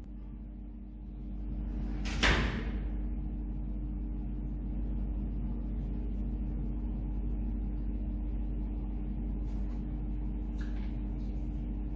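Steady motor hum of running aquarium equipment, with one brief loud thump about two seconds in.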